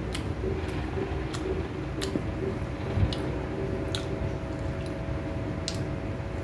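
A person biting and chewing a dried red jujube, giving short wet clicks and smacks of the mouth every second or so. A dull knock comes about three seconds in, over a steady low hum.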